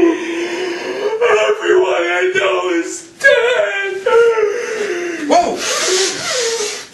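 A man wailing and sobbing in mock despair, several long wavering cries one after another. Near the end comes a loud hissing blast as he blows his nose into a tissue.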